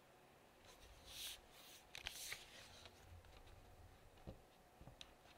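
Faint handling of a metal-bodied ASUS Zenbook 14 UX3405 laptop as it is turned over and laid on a desk: two short rubbing swishes of hands on the chassis, then a few light taps as it touches down.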